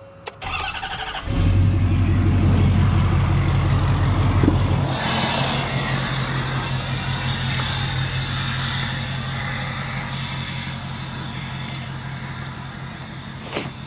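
Engine cranked briefly by the starter, catching about a second in and running fast, then settling to a steady idle about five seconds in.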